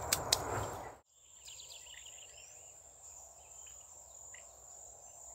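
Steady high-pitched insect drone with short, quick bird chirps over it. In the first second, rustling through brush with two sharp clicks that cuts off suddenly.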